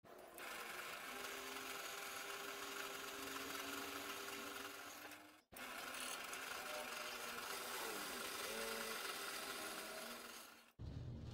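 Bench drill press running and boring holes in an aluminium plate: a steady whir of motor and bit cutting. It breaks off for a moment about halfway and then carries on.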